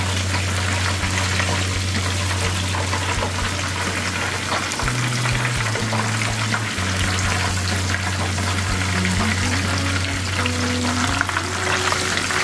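Breaded pork cutlet rolls frying in a pan of hot oil: a steady sizzle.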